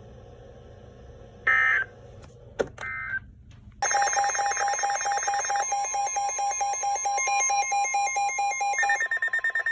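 Emergency alert broadcast tones between weather warning messages: two short electronic bursts, then, about four seconds in, a loud, rapidly pulsing two-pitch alarm tone lasting about six seconds that shifts pitch near the end.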